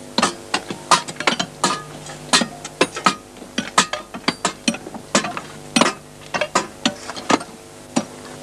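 Many hand tools striking rock in a quarry, irregular sharp metallic clinks and knocks overlapping several times a second, over a low steady hum.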